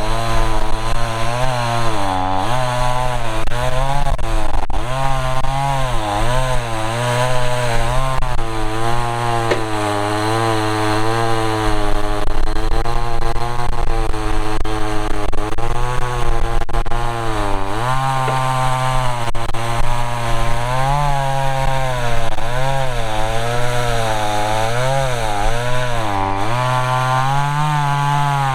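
A two-stroke gas chainsaw cuts through a log under load. Its engine pitch rises and falls continually as the chain bites and frees up. A battery-electric chainsaw is cutting the same log at the same time.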